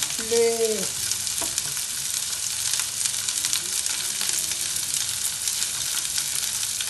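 Sliced onions frying in hot oil in a nonstick pan: a steady sizzle with fine crackling pops.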